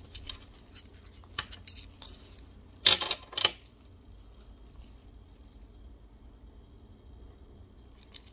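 Metal snap hooks and buckles on two dog seat-belt tethers clinking and jingling as they are handled: a run of small clicks, with the loudest clatter about three seconds in.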